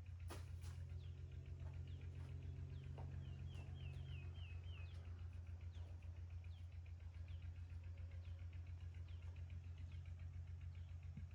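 A steady low hum with a fast even pulse, and faint high chirps over it, including a quick run of about five falling chirps a few seconds in.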